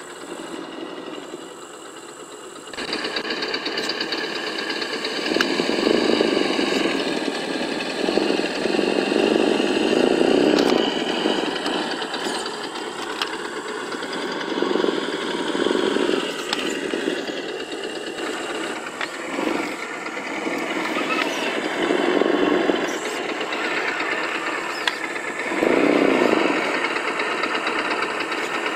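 Simulated engine sound from an ESS-One+ sound module's small speaker on an Axial SCX10 RC crawler, as the truck crawls over rocks. It gets louder about three seconds in and then rises in repeated revving surges every few seconds.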